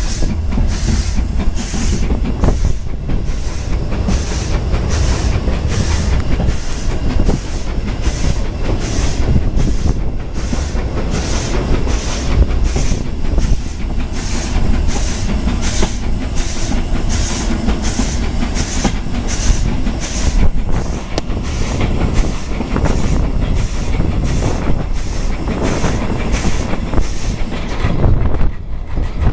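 Austerity 0-6-0 saddle tank steam locomotive working along the line, its exhaust beating in an even rhythm of about one and a half beats a second over the steady rumble of the brake van running on the track.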